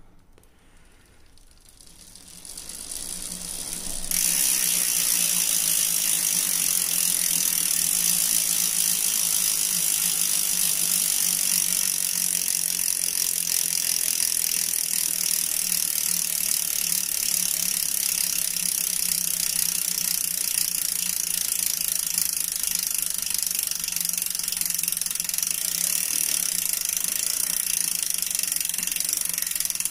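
Mountain bike rear freehub buzzing as the wheel spins freely, its pawls clicking so fast they blur into one steady ratcheting buzz. It swells up over the first few seconds and then holds steady.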